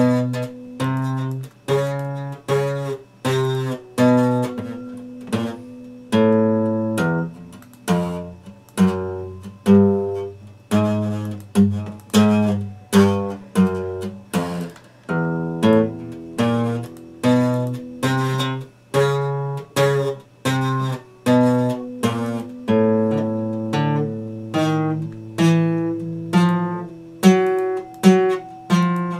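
Epiphone steel-string acoustic guitar strummed, chords played in a steady rhythm of about one strong strum a second with lighter strokes between.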